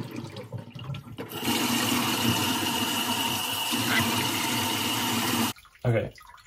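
Kitchen tap turned on about a second in, running in a steady stream into a stainless steel sink as a fencing mask is rinsed under it, then shut off abruptly near the end.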